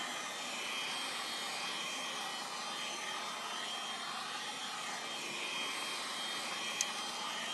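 Handheld hair dryer blowing steadily, with a thin high whine, as it dries freshly applied leather sealer. A brief click near the end.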